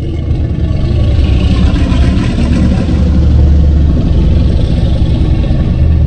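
Edited Godzilla roar sound effect, lowered in pitch: one long, loud roar with a deep low rumble.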